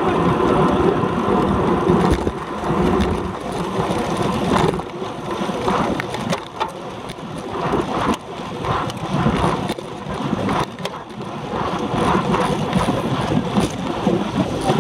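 Wind rushing over the microphone of a handlebar-mounted camera on a road bike at race speed, with tyre and road noise. The rush eases for several seconds in the middle, where a few sharp clicks stand out, then builds again.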